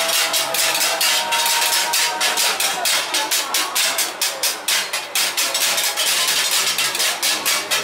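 A group of Japanese hand-held gongs struck with beaters in a fast, even rhythm of about five strikes a second, the metal ringing on between the strikes.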